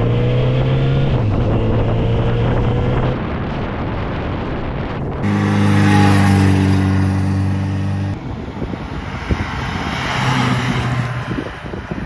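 Kawasaki Z900RS inline-four engine running at a steady speed, in several short clips that cut abruptly about 3, 5 and 8 seconds in; after the last cut the engine is quieter under a rushing, wind-like noise.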